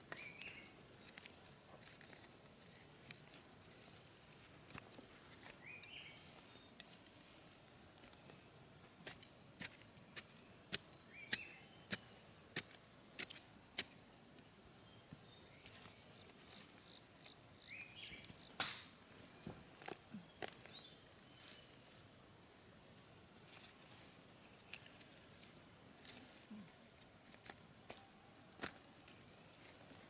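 Steady high-pitched insect drone that steps up and down in pitch a few times. Over it come scattered sharp clicks and light scuffs from hands working loose soil, most of them in the middle stretch.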